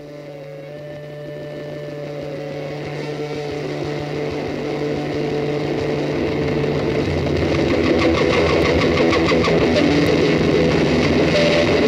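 An engine running at a steady pitch, growing steadily louder over the first eight seconds and then holding level, as music fades out near the start.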